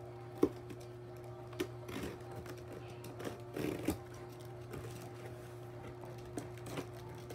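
Utility knife slitting packing tape on a long cardboard box: scattered clicks and scratchy scrapes of blade and cardboard, the sharpest click about half a second in and a busier stretch of scraping a little before the midpoint. A steady low hum runs underneath.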